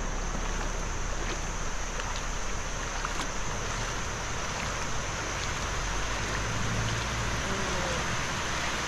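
Shallow river water rushing steadily over the edge of a low concrete road ford.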